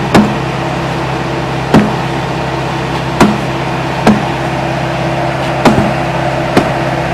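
Six sledgehammer blows on a concrete driveway slab, breaking it up, unevenly spaced about a second apart. Underneath, a Bobcat skid-steer loader's engine runs steadily.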